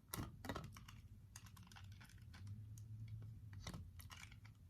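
Faint, irregular light clicks and taps of slime-kit cups and containers being handled and set down on a table while glue mixture is poured, over a low steady hum.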